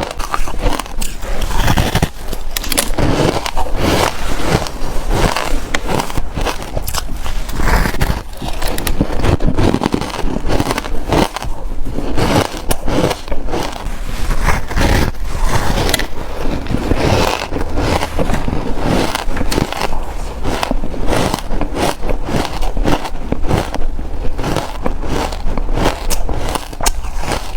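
Close-miked biting and chewing of reshaped, powdery ice: a continuous run of sharp, crackling crunches, many to the second.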